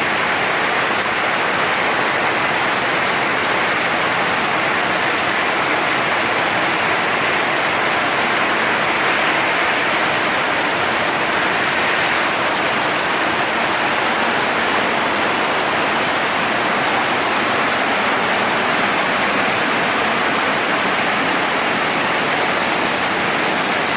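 Heavy rain pouring down steadily: a dense, even hiss of downpour that does not let up.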